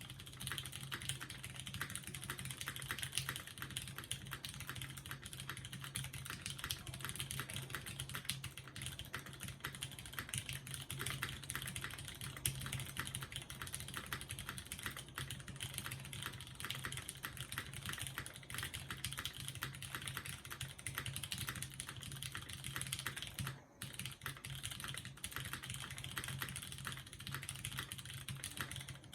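Continuous typing on a custom mechanical keyboard: a zekk.works Jennie with lubed Cherry MX Brown tactile switches on an aluminium plate and GMK keycaps, a dense stream of keystrokes with a brief pause about four-fifths of the way in. Picked up by a phone microphone.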